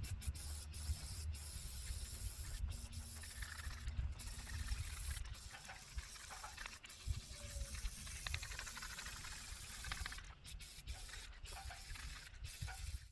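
Aerosol can of clear-coat spray paint hissing as a coat is sprayed on, with a few brief breaks in the spray. A low rumble runs underneath.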